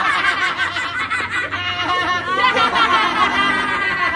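Two boys laughing hard together, high-pitched and without a break.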